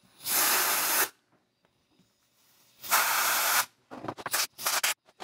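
Compressed-air blow gun firing blasts of air: two of about a second each, then a quick run of short bursts near the end. The air is being forced between a set plaster mold and its plastic bucket form to break the mold free for demolding.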